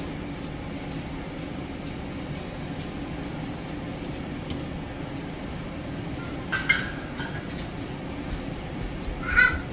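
Two sharp clinks, about six and a half and nine and a half seconds in, each ringing briefly: metal tongs knocking against the canning pot and a glass jar as a sterilized jar is lifted out. A steady low hum runs underneath.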